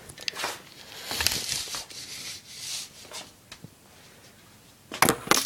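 Handling noise while measuring BMX handlebars: scattered clicks and short rustling scrapes, with a quick run of loud clicks about five seconds in.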